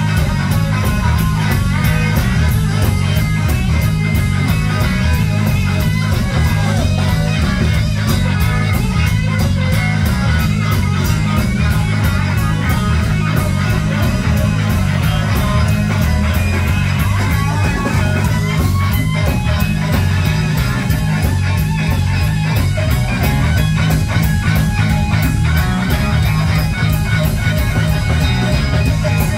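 Live band playing loudly: electric bass guitar, electric guitar and a drum kit keeping a steady beat.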